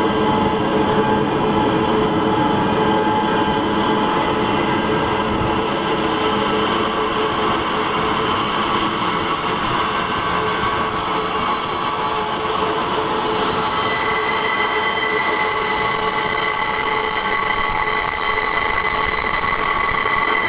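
Transperth B-series electric train arriving, its wheels squealing loudly in several steady high tones held together over a running rumble; another tone joins about two-thirds of the way through.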